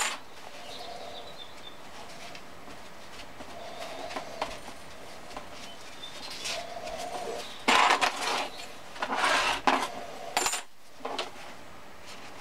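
Steel lathe chuck parts handled on a rubber-matted tray: a sharp metal clink right at the start and small scattered clicks, then paper towel rustling and rubbing in two louder stretches about eight and nine seconds in, as excess threadlocker is wiped off the chuck's studs.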